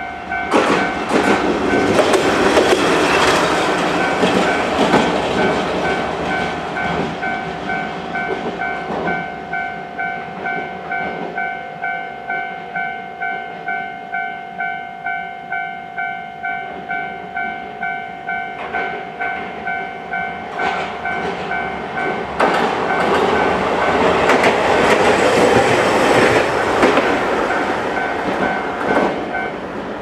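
Japanese level-crossing electronic warning bell ringing steadily and repeatedly, falling silent near the end as the crossing clears. Two trams pass over the crossing, one in the first few seconds and one starting about two-thirds of the way in, their running noise rising over the bell.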